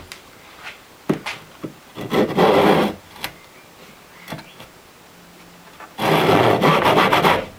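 A hand tool rasping or cutting wood in quick repeated strokes: one bout about two seconds in and a longer one about six seconds in, with a few light knocks between.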